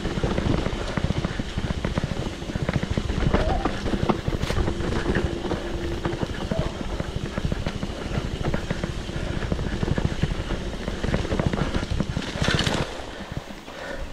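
Mountain bike rattling and jolting over a rough trail, with steady rumbling and many quick knocks, and wind buffeting the microphone. A short hiss comes near the end, after which the noise drops.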